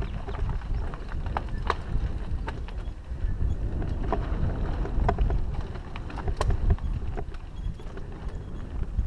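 Mountain bike riding over a rocky dirt trail: steady wind rumble on the microphone, with scattered clicks and rattles from the tyres on loose stones and the bike jolting over bumps.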